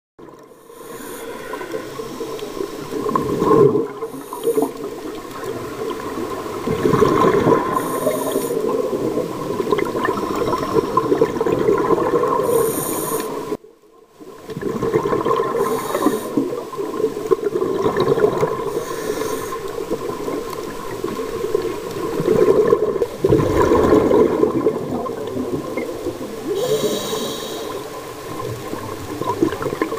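Scuba breathing recorded underwater: a steady watery rush with surges of exhaled regulator bubbles every few seconds, over a steady low hum. The sound drops out briefly near the middle.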